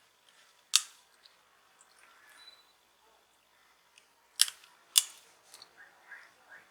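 Small hand tools and plastic smartphone parts being handled while the phone is taken apart. There are three sharp clicks, one under a second in and two about half a second apart near five seconds, with faint scraping in between.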